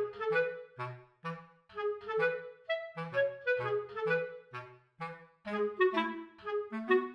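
Background music: a light tune of short, detached woodwind notes, clarinet-like, over a line of short bass notes in a steady rhythm.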